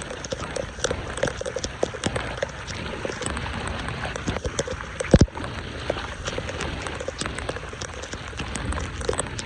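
Water pattering and splashing in many small scattered drops, with one low thud about five seconds in.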